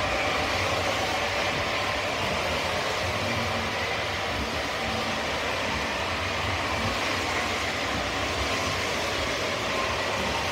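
O scale model trains running on a layout: a steady rolling noise as a line of freight cars passes close by on the track.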